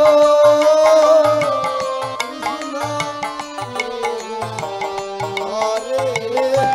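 Devotional kirtan music: mridanga drum beats under a held, gently gliding melody line, with no words sung.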